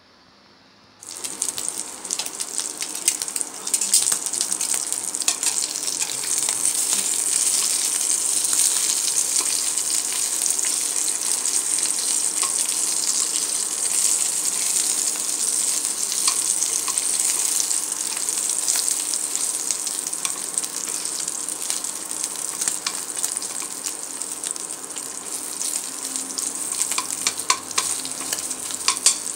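Fat trimmings sizzling and crackling in a hot stainless steel pan, starting about a second in, with occasional metal clicks as tongs turn them.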